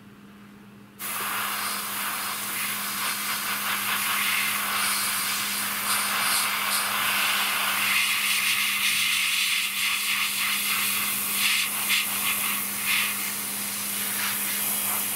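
Airbrush spraying a gloss clear coat: a steady hiss of air and paint that starts abruptly about a second in and keeps going, over a low steady hum.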